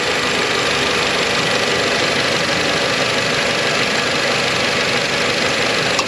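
Nissan Rogue engine idling steadily, heard up close under the open hood.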